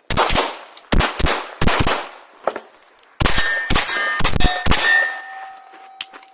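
Rapid pistol shots in two quick strings, about a dozen in all, with steel target plates clanging on the hits. The last plate hit is left ringing with a steady metallic tone that slowly fades.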